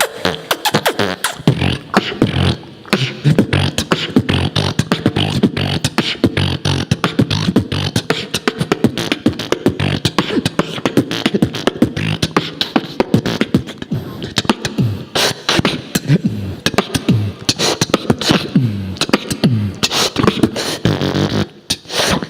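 Solo human beatboxing: a fast, dense rhythm of mouth-made kick, snare and hi-hat clicks over sliding, pitched bass sounds from the voice.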